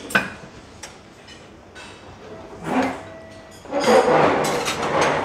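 Hot soy milk being ladled into a bowl at a buffet. A sharp clink of the ladle comes first, then a short splash, then a longer pour of about a second and a half near the end.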